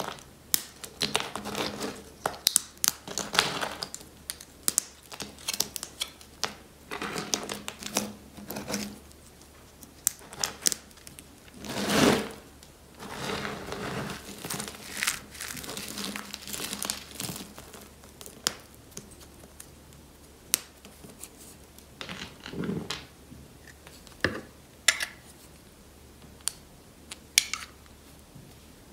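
Dry, brittle soap flakes and shavings being crumbled and crushed by hand, giving dense crackling and crunching. The loudest crunch comes about twelve seconds in. The second half thins out to scattered single snaps and clicks.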